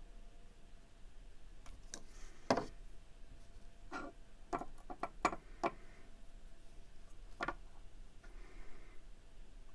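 Light, irregular clicks and taps of small pocket-knife parts and tools being handled on a work surface, about seven sharp ticks in all, the loudest about two and a half seconds in.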